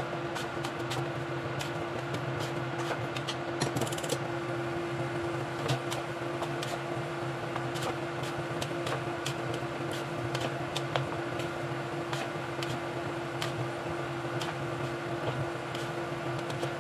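A wooden spatula scrapes and knocks against a stainless-steel pan while stirring thick, sticky espasol dough, giving irregular light clicks and scrapes. Under it a steady hum runs throughout.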